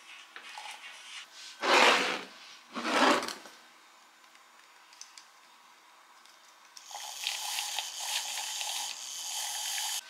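Handheld battery milk frother whirring steadily in a glass, whisking instant coffee and whey powder together; it starts about seven seconds in. Before it come two short, loud rushing noises about a second apart.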